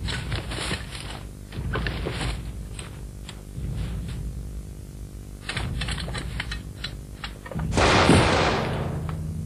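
Assault rifle gunfire in scattered groups of quick shots and short bursts. Near the end comes a much louder, longer blast that fades out over about a second. A steady low hum runs underneath.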